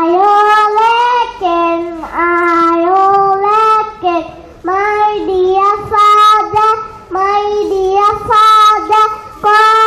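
A young girl singing a song into a microphone. One clear child's voice holds each note, with short breaths between the phrases.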